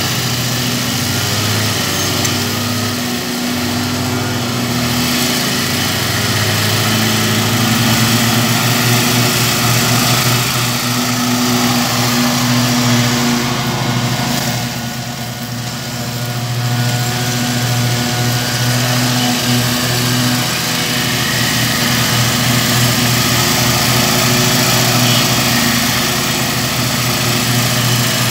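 Stand-on zero-turn lawn mower's engine running steadily under load while it mows, dropping briefly in loudness about halfway through.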